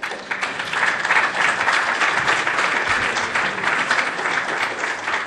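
An audience of a few dozen people applauding, the clapping starting suddenly and holding steady.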